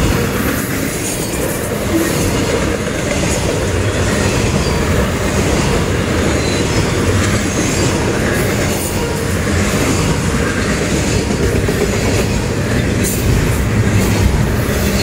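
Double-stack intermodal freight train rolling past close by: a steady rumble of container-laden well cars on the rails with scattered wheel clicks.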